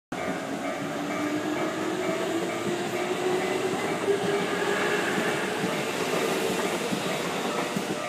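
Japanese level-crossing warning bell ringing in a steady repeating pattern, with the noise of a train on the line and an electric motor whine that rises slowly in pitch over the first five seconds, then fades.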